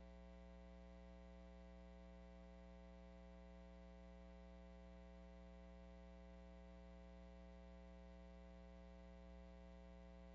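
Near silence with a faint, steady hum.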